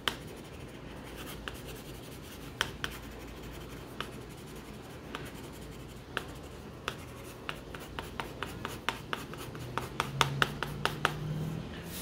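A pencil scratching on paper in short strokes as stripes and patches are coloured in, each stroke landing with a small tick. The ticks come quicker near the end.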